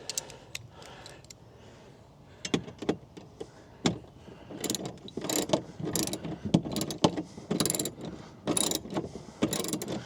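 Hand ratchet clicking in quick runs as it drives the screws that hold a TV mounting bracket, starting a couple of seconds in and growing busier.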